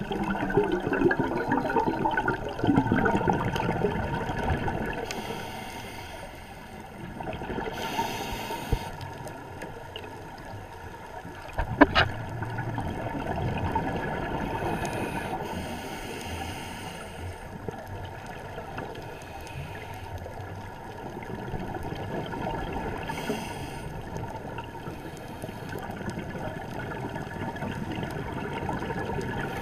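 Underwater sound heard through a camera housing: a low muffled water rumble, broken every few seconds by short bursts of hissing, bubbling scuba regulator exhaust as a diver breathes out. There is one sharp click about twelve seconds in.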